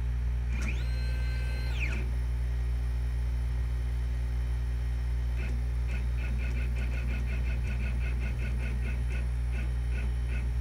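Stepper motor of a DIY laser cutter driving a plastic pinion along a wooden rack: a whine that rises in pitch, holds and falls about a second in, then from about halfway on a rapid string of short chirps, about five a second, as the carriage makes many small moves, over a steady low hum.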